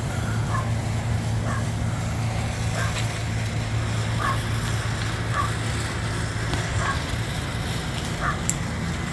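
Vehicle engine idling steadily, with faint short high squeaks every second or so.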